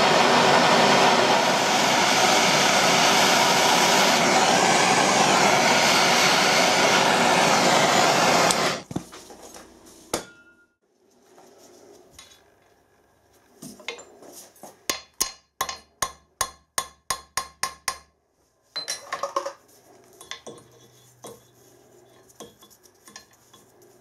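Gas blowtorch burning with a steady hiss, heating the vice jaw around a seized broken stud to loosen it; the hiss cuts off about nine seconds in. Later comes a quick run of about a dozen sharp metallic taps, about three a second, then a few fainter knocks.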